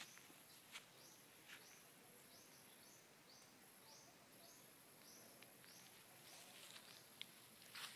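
Faint forest wildlife: a run of short high chirps, about two a second, over a thin steady high-pitched drone. A few soft footsteps in the undergrowth.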